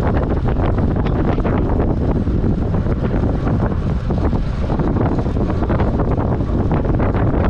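Wind buffeting the microphone of a camera riding along on a track bicycle at race speed: a loud, steady, rough rush with constant small gusts.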